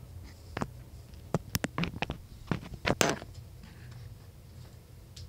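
Handling noise: a quick string of light clicks and taps as a USB cable and small items are moved about on a workbench. The clicks bunch together in the first three seconds, then die away.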